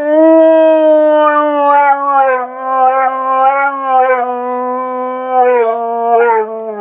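Dog howling: one long howl that rises at the start, holds, sinks slowly in pitch and breaks off near the end.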